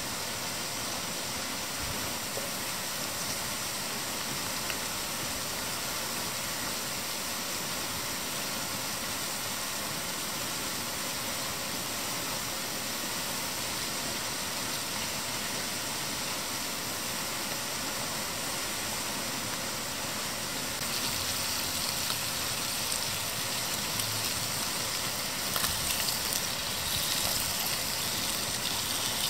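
Steady rushing of flowing water. From about two-thirds of the way in, bacon starts to sizzle in a small frying pan on a spirit stove: a crackling hiss that grows a little louder toward the end.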